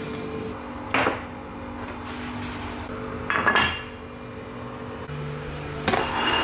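Kitchen clatter of dishes being handled: three separate knocks and clinks, about a second in, midway and near the end, as a ceramic plate and other items are set down on a countertop.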